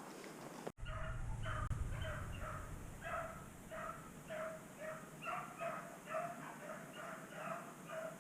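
Rabbit dogs baying as they run a cottontail's trail: a steady string of short, pitched barks and yips, about three a second. A low rumble on the microphone comes just after the start.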